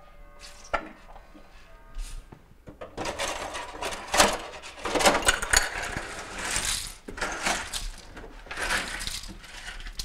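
Hot water being squirted into a refrigerator's freezer drain trough under the evaporator coil, splashing over ice with small clinks, to melt the ice that plugs the drain. It comes in spells, the longest from about three to seven seconds in, then two shorter ones.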